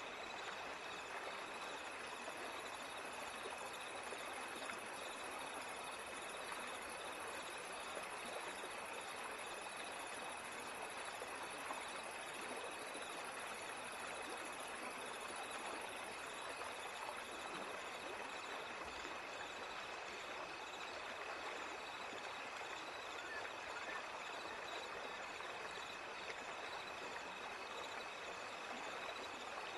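Steady running-water sound like a flowing stream, even and unbroken, with a thin steady high tone held underneath, used as the masking background track of a subliminal recording.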